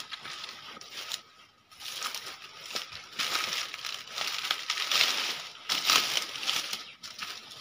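Rustling and crunching of grass and dry leaves underfoot as someone walks through a field, coming in irregular swells.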